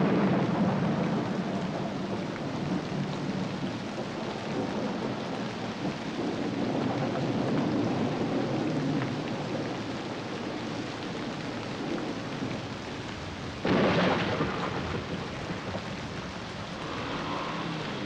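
Steady heavy rain with thunder, a low rumble fading in the first couple of seconds, and a sudden sharp thunderclap about three-quarters of the way through.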